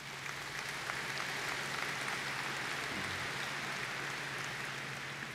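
Audience applauding, swelling over the first couple of seconds and then slowly dying away.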